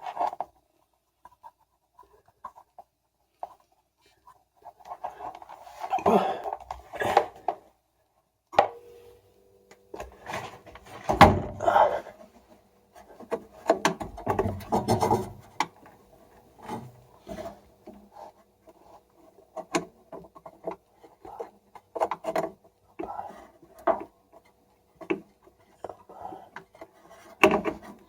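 Irregular rubbing, scraping and small knocks of parts being handled and worked while the washing machine's friction damper is reassembled. A faint steady hum comes in about a third of the way through.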